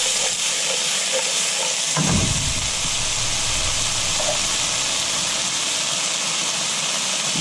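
Chickpeas, kale and tomatoes sizzling steadily in oil in a frying pan on a portable gas stove, with a single low thump about two seconds in.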